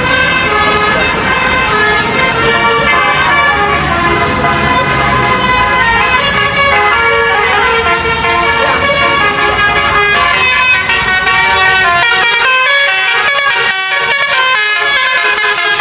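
Indonesian bus 'telolet' horn, a multi-tone air horn playing a melody of short stepped notes over and over. A low rumble runs underneath and drops away about twelve seconds in, leaving the horn tones alone.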